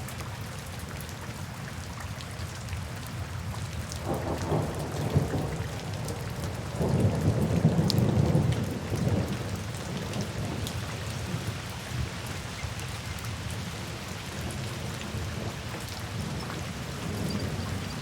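Steady rain falling, with a roll of thunder that builds about four seconds in, is loudest around the middle, and dies away a few seconds later.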